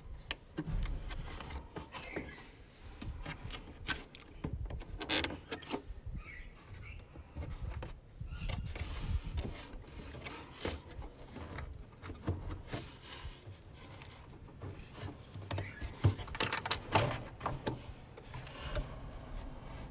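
Plastic catches on a car's rear-light bulb holder being worked by hand: scattered clicks and plastic rubbing over a low rumble, with a cluster of louder clicks about sixteen seconds in.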